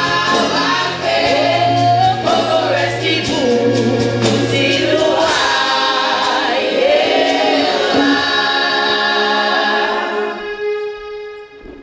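Women's gospel choir singing, ending the song on a long held chord that fades away in the last couple of seconds.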